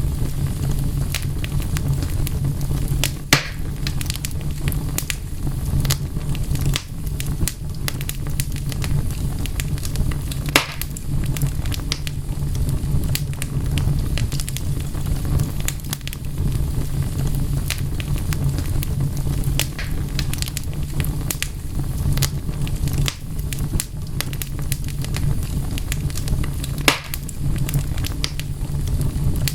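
Wood fire crackling steadily, with a low rumble under a constant patter of small snaps. A few louder pops stand out, about three seconds in, around ten seconds in and near the end.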